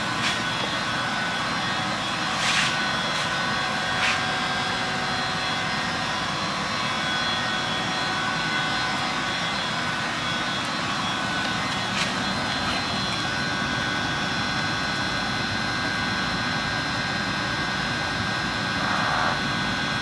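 Infrared belt furnace running: a steady whoosh of fans with a faint hum of steady tones, broken by a few light clicks.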